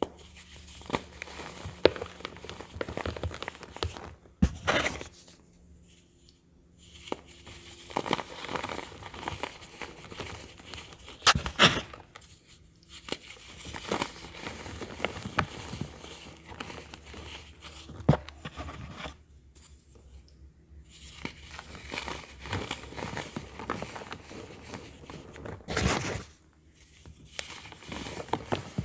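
Hands crushing and crumbling pressed baking soda blocks into powder, a dry crunching and crackling that comes in spells with short quiet pauses between.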